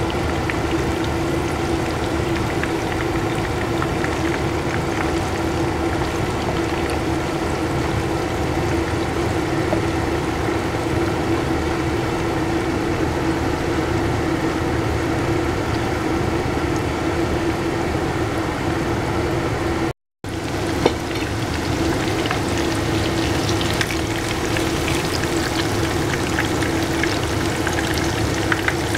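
Seafood tofu squares shallow-frying in oil in a nonstick pan: a steady sizzle with fine crackles, over a steady low hum. The sound cuts out for a moment about two-thirds of the way through, and the crackling is busier after it, with a few louder pops near the end as the pieces are turned with a spatula.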